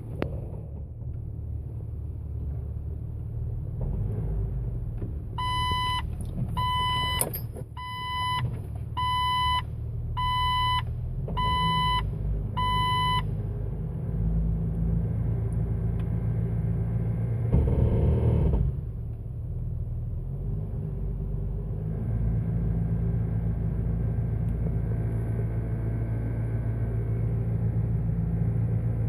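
Jeep Wrangler TJ's warning chime beeping seven times, about one a second. About two-thirds of the way through there is a short louder burst of engine noise, after which the engine runs steadily at low revs with a low hum.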